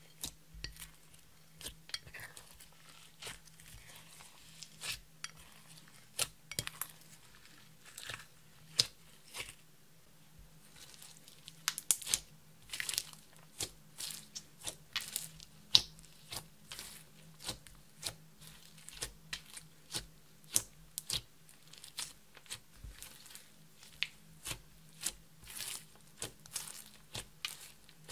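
Red glitter slime being kneaded and squeezed by hand, giving a steady stream of small irregular clicks, pops and crackles as it is pressed and pulled.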